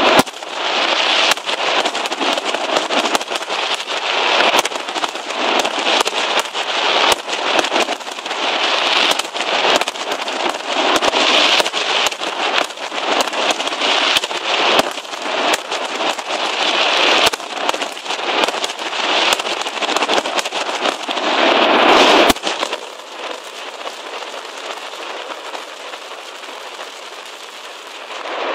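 A mascletà's aerial firecrackers bursting in a dense, rapid, unbroken string of sharp bangs and cracks. About three-quarters of the way through, the barrage drops off suddenly to a much quieter background.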